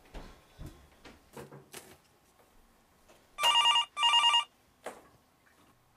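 Telephone ringing: two short electronic rings in quick succession about three and a half seconds in.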